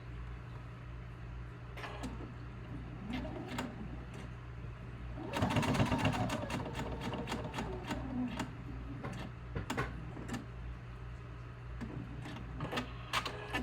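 Sewing machine running a long basting stitch in stop-start runs of rapid needle ticks, the longest and loudest run in the middle, over a steady low hum.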